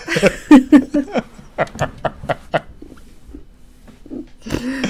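People laughing together, a run of quick breathy laughs that die away after about two and a half seconds, with a short spoken word near the end.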